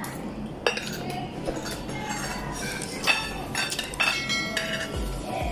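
Metal spoon and fork clinking against a ceramic plate while eating. There are a few sharp clinks with brief ringing: one near the start, and the loudest about three and four seconds in.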